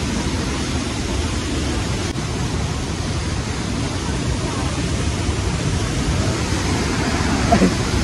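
Steady rushing of a tall waterfall and the white-water stream below it.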